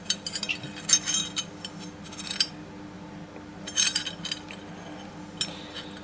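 Iron ring and belt hook of a hand-forged iron multitool clinking together as they are handled, in a few short clusters of light metal taps.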